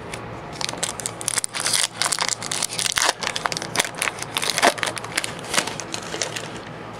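Foil booster pack wrapper crinkling and being torn open by hand: a dense run of crackles and rustles from about half a second in until near the end.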